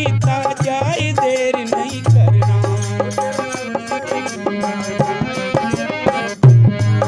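Instrumental passage of a Hindi bhajan: a tabla and drum rhythm under a wavering melody line, with heavy low notes at the start and again from about two seconds in.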